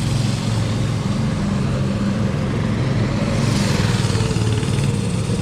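Go-kart's small engine running steadily close by.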